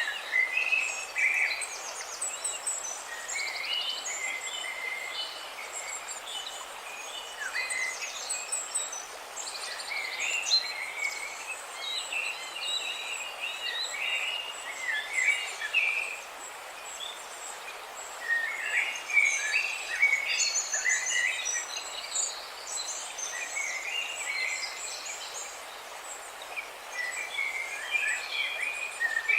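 Several songbirds chirping and trilling continuously, with many short overlapping calls and rapid trills, over a steady background hiss.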